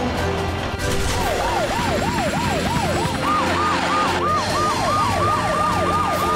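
Cartoon emergency-vehicle sirens. A fast up-and-down wail starts about a second in, and a second siren at a slightly higher pitch joins about two seconds later, the two wailing together.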